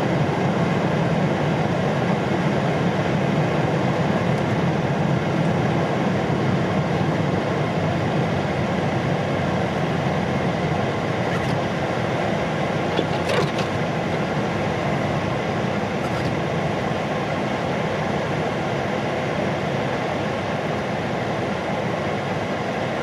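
Steady road noise inside a car's cabin while driving on a snow-covered road: engine and tyre rumble, with a couple of faint clicks about halfway through.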